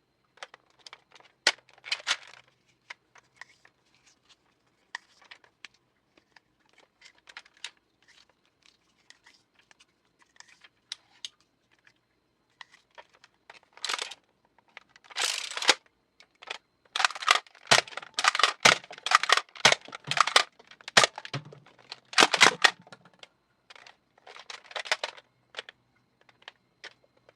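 Nerf Elite Strongarm dart blaster being handled, primed and fired again and again at targets. It makes sharp plastic clacks and short rasping bursts, scattered at first and coming thick and fast in the second half.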